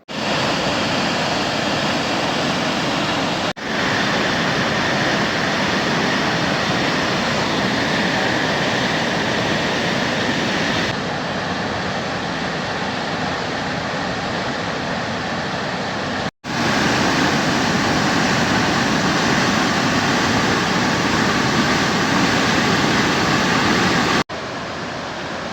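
Waterfall rushing in a steady, loud roar of falling water. It is broken three times by sudden brief cuts where takes are joined, and the level shifts a little after each cut.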